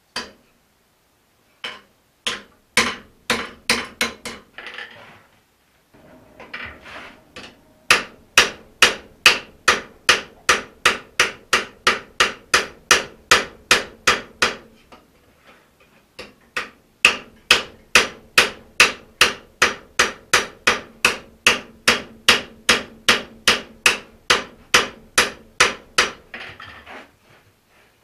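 Hand hammer striking a red-hot axe head on the anvil, a few scattered blows and then long steady runs of about two to three blows a second with one short pause, the anvil ringing under the strikes. This is hand forging of a felling axe head to its final shape.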